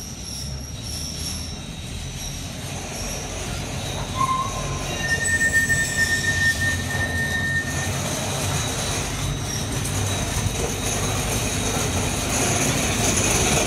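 Ascensor do Lavra funicular car screeching as it runs along its rails toward the listener, a high squeal over a low rumble that grows louder as it nears. A sharper tone cuts in about four seconds in, and a steadier, stronger one from about five to eight seconds.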